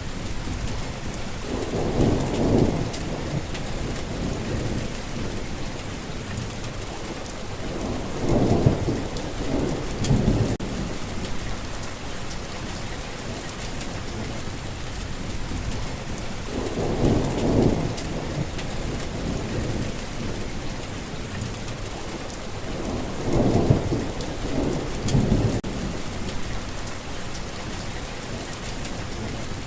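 Steady rain falling, with low rumbles of thunder swelling up about four times and fading after a second or two.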